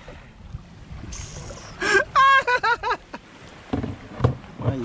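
Low rumbling of wind and handling noise on the microphone, with a brief vocal exclamation about two seconds in.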